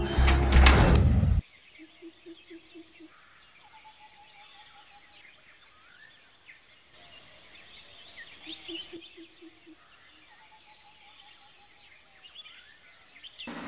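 Dramatic film score swelling with a rising sweep, then cutting off suddenly about a second and a half in. After that, quiet outdoor ambience: birds chirping, and twice a low call of a few quick pulses.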